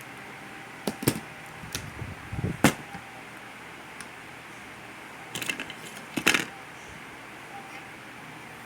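Small metal tools and parts clicking and scraping by hand: a few sharp clicks between about one and three seconds in and again around six seconds, over a faint steady hiss. The sounds come from cleaning a spot on the clipper's switch wiring so the solder will take.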